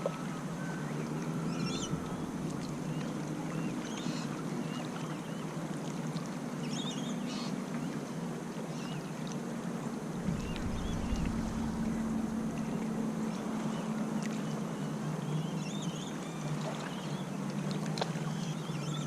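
Steady wash of surf and wind on an open beach, with small birds calling in short chirps every second or two. A low rumble of wind on the microphone sets in about halfway.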